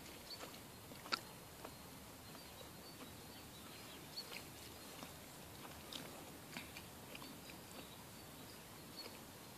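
Faint outdoor background hiss with scattered small clicks and ticks, one sharper click about a second in.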